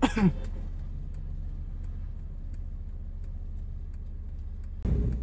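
Car engine and road hum heard from inside the cabin while driving, steady and low, with faint regular ticking over it. A louder low rumble comes in near the end.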